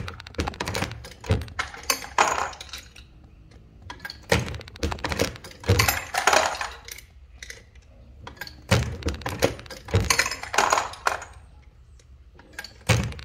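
Dillon 550C progressive reloading press being cycled by hand: metallic clicks, clinks of brass and bullets, and thunks of the press stroke, coming in bunches about every four seconds.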